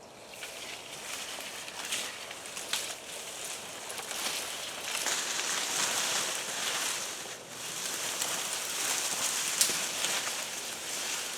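Small campfire of damp, freshly cut wood hissing and crackling, with a few sharp pops; the wood is too wet to burn well and is steaming rather than burning.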